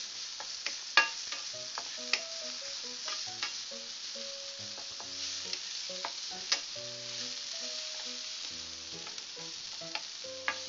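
Chopped garlic and onion sizzling in oil in a nonstick frying pan while a wooden spatula stirs them, with sharp clicks as the spatula knocks the pan, the loudest about a second in. The garlic is already scorching black.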